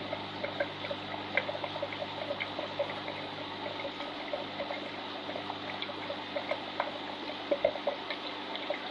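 Water trickling and bubbling steadily in a large display aquarium, with a steady low hum beneath.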